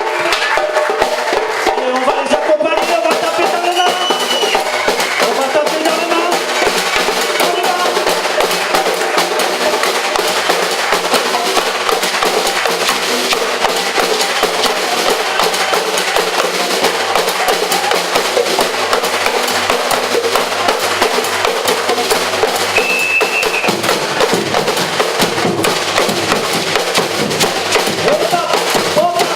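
Live percussion group drumming a dense, steady groove of drum and percussion strokes, with a brief high tone about three-quarters of the way through.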